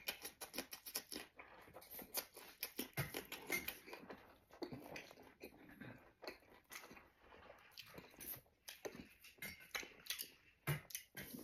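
A person chewing and crunching food: a raw red chili pepper, then a bite of a steamed bun, heard as many quick, irregular mouth clicks.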